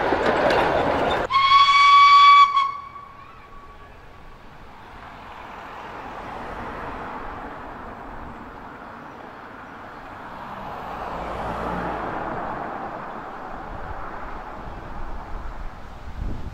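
Narrow-gauge carriages rattling past close by, cut off suddenly about a second in. Then a steam locomotive whistle gives one steady blast of about a second, most likely from the steam locomotive Pedemoura. After the blast the train is heard faintly working in the distance.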